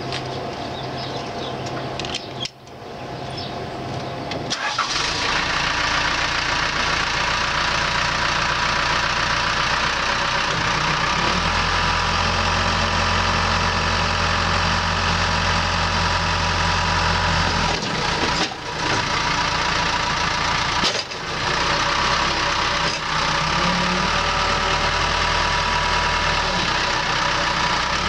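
Case skip loader's diesel engine cranking and catching about five seconds in, then running steadily. For several seconds in the middle the engine note deepens and strengthens as the loader bucket is raised.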